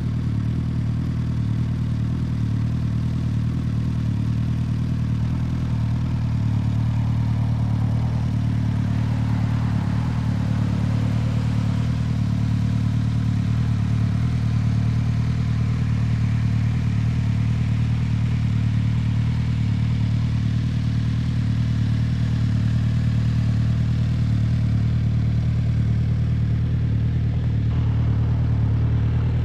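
Suzuki Hayabusa inline-four engine idling steadily through an Akrapovic exhaust, with an even low tone and no revving.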